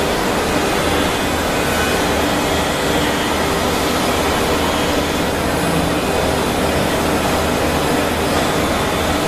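Multi-spindle 4-axis CNC wood-carving router running, its spindles cutting several wooden table legs at once: a steady, loud mechanical noise with a few faint steady tones, no breaks.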